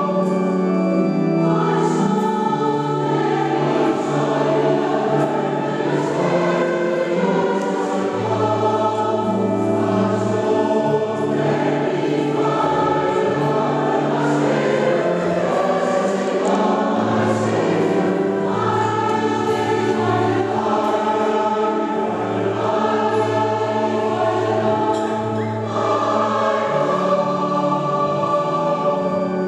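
Mixed choir of men and women singing a sacred choral piece in a church, sustained chords moving step by step without a break.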